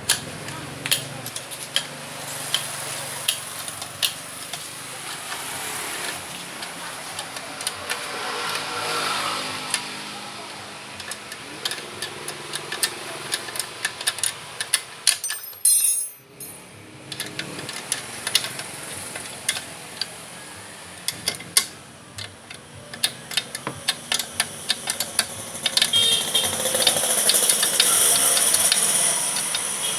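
Irregular clicks, knocks and rattles of hand tools and metal parts being handled, over a background of indistinct voices. The sound drops out briefly about halfway through.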